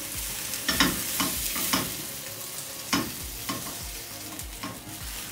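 Diced tomatoes frying in olive oil in a nonstick pan over a gas flame, a steady sizzle, with a silicone spatula stirring and scraping the pan in short irregular strokes as the tomato sauce cooks down.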